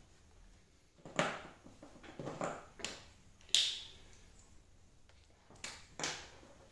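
About six short, sharp rustling and knocking noises, spaced irregularly over several seconds: the sounds of a person moving about and handling things, with quiet room tone between them.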